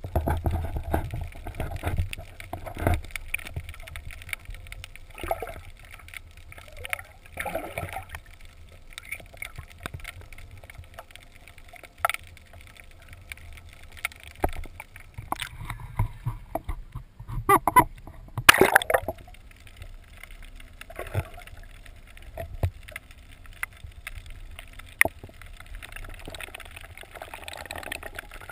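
Water gurgling and sloshing as heard by a camera held underwater, muffled, with many irregular knocks and bumps. The loudest cluster of bumps comes about two-thirds of the way through.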